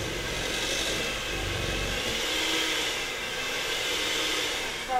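Electric hand mixer running steadily, its beaters creaming margarine, powdered sugar and egg into sugar-cookie dough in a bowl.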